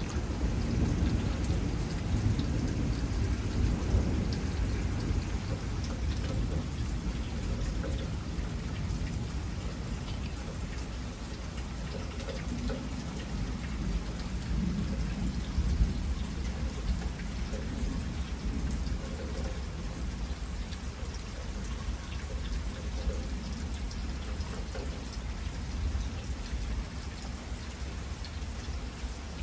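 Heavy thunderstorm rain falling steadily, with low rolling thunder rumbling beneath it, strongest in the first few seconds and again around the middle.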